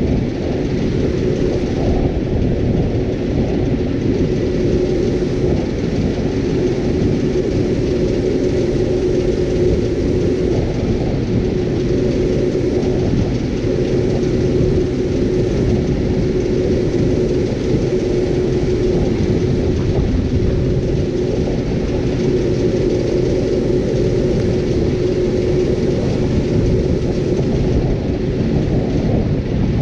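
Bizon ZO-58 Rekord combine harvester running steadily at work, a continuous heavy rumble with one steady whine held through it.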